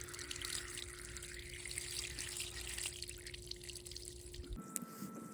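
Well water gushing steadily out of a hose as the well pump flushes brown, silty water from the well, with a faint steady hum underneath. A little over four seconds in, the sound changes abruptly to a thinner, quieter rush of water.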